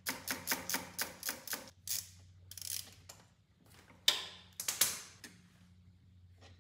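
Socket ratchet clicking in a quick run as it backs off the 12 mm nut on a starter's positive terminal, followed by a few separate clicks and clanks of tools and metal.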